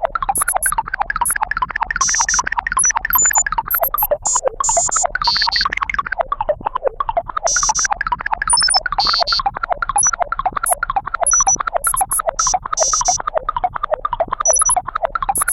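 Tractor or backhoe digging: the engine runs with a fast, pulsing chug, while short, high-pitched metallic squeals and scrapes from the digging gear break in every second or so.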